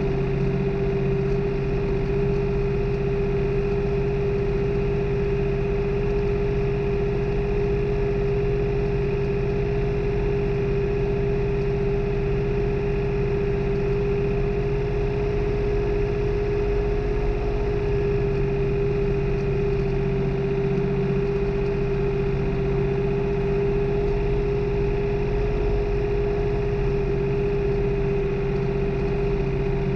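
New Holland farm tractor's diesel engine running at a steady, even speed while tilling a field, a constant engine hum with no change in pitch.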